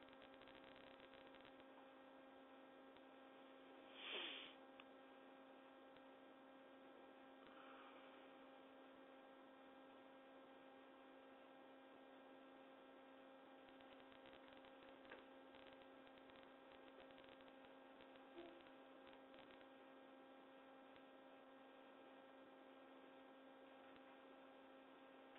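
Near silence with a steady background hum of several even tones. About four seconds in there is one brief, faint noise.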